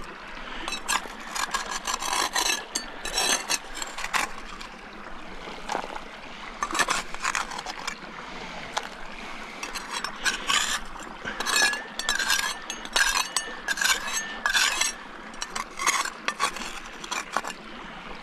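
Metal crevicing tool and scoop scraping and scratching gravel and clay out of a rock crevice, in quick irregular strokes. A thin high squeal wavers for a few seconds past the middle.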